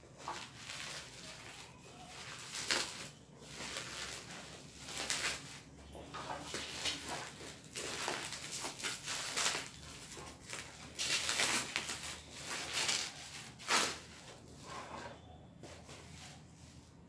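Plastic packaging crinkling and rustling in irregular bursts as a parcel is unwrapped by hand, dying down near the end.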